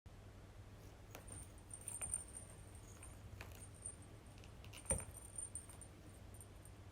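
Cat toy ball being batted about: a few light knocks, the loudest about five seconds in, with a high metallic jingle coming and going.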